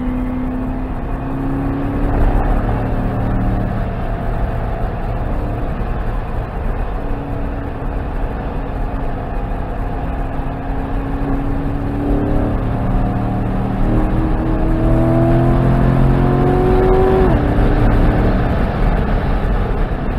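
Chevrolet Corvette C7 Grand Sport's 6.2-litre V8 driven hard on a racetrack, its note rising and falling with the throttle and gears. In the second half it climbs in pitch through a long pull, then drops suddenly, all over steady wind and tyre noise.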